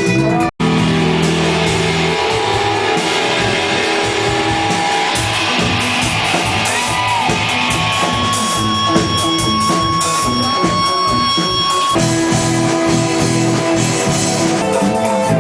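Live rock band playing loud through a PA, with guitars and drum kit. The sound cuts out for a split second about half a second in.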